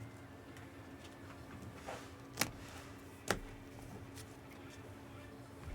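Trading cards and their packaging being handled: a soft tap, then two sharp clicks about a second apart, over a steady low hum.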